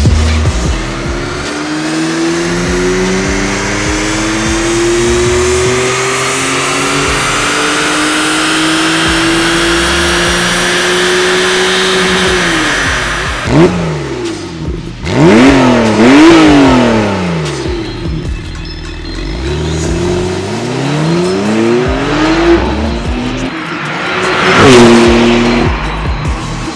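Porsche 911 Turbo's 3.8-litre twin-turbo flat-six, stage 1 remapped, through an Akrapovic titanium slip-on exhaust: one long full-throttle pull with the note rising steadily for about twelve seconds, then several quick rises and drops in revs as it accelerates and shifts. Near the end the car goes past loudly.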